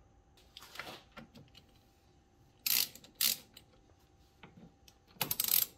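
Hand ratchet wrench clicking in a few short bursts as it is swung back and forth on a nut at a car battery terminal.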